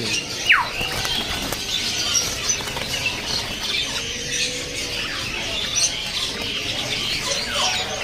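Many caged songbirds chirping and twittering at once, with many short overlapping calls. Yellow-vented bulbuls flutter their wings in a crowded cage.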